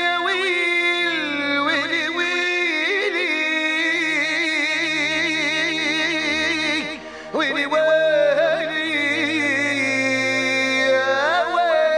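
Background music: a solo voice sings long, wavering, ornamented phrases over low held notes that shift in pitch. The singing breaks off briefly about seven seconds in, then resumes and fades out at the end.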